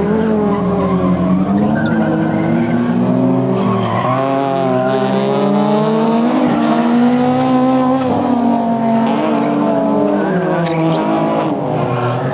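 Front-wheel-drive race car engine revving hard, its pitch rising and falling repeatedly as the car is driven through a tight course, with tyres squealing at times.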